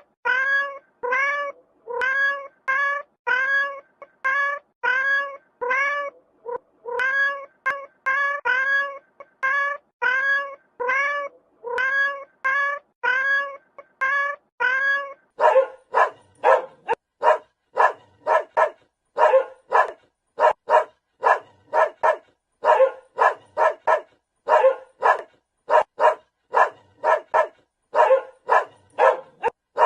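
A cat meowing over and over, each meow rising and falling in pitch, a little more than one a second. About halfway through it gives way to a dog barking rapidly, about two short barks a second.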